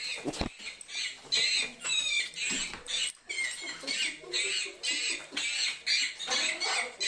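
A novelty greeting card's tiny speaker playing a shrill, tinny, squeaky voice-like sound in quick repeated bursts, a few a second. A brief low thump about half a second in.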